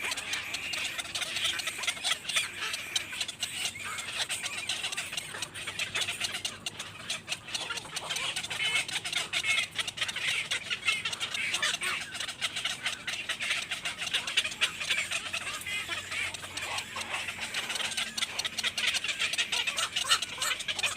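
Many small birds chirping and peeping continuously, a dense overlapping chatter.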